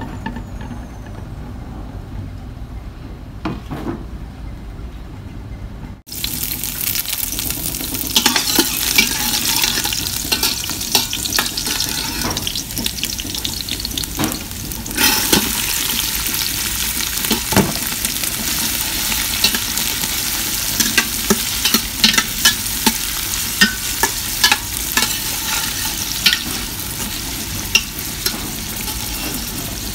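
Chopped garlic and then diced onion sizzling in hot oil in a stainless steel stockpot, with a metal spatula scraping and clicking against the pot as it is stirred. The sizzle starts suddenly about six seconds in and gets louder around fifteen seconds in.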